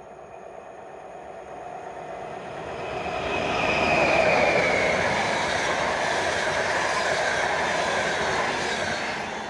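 Electric locomotive-hauled passenger train running through the station at speed, getting louder as it approaches. It is loudest as the locomotive passes about four seconds in, with a high whine that drops in pitch. The rush of the coaches' wheels on the rails carries on and starts to fade near the end.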